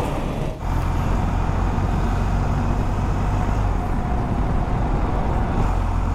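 BMW R1250GS boxer-twin motorcycle riding through city traffic at about 50 km/h: a steady low rumble of engine and wind on the microphone, with the surrounding traffic. It starts abruptly about half a second in.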